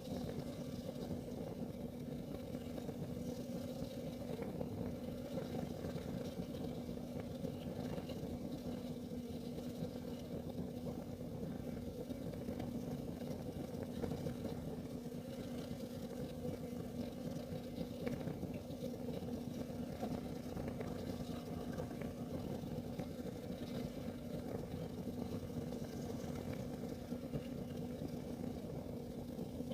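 Kerosene heater burning: a steady low hum with one constant tone in it, and scattered faint ticks.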